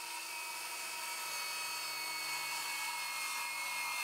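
Ryobi cordless circular saw running at full speed, its blade cutting through a wooden board with a steady high whine.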